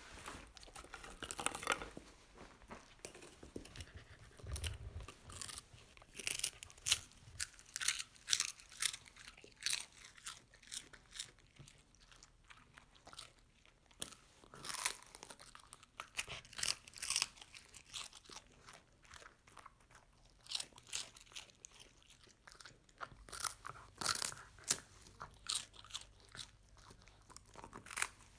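A dog crunching and chewing strawberry-flavoured puffed rice sticks: irregular crisp crunches coming in clusters, with short pauses between bites.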